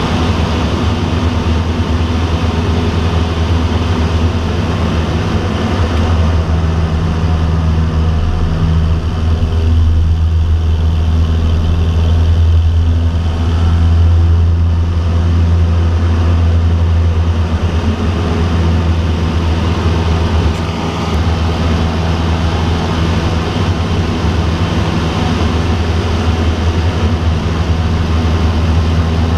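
American Champion Super Decathlon's four-cylinder piston engine and propeller droning steadily, heard inside the cockpit in flight. The drone swells a little around the middle and dips briefly about two-thirds of the way through.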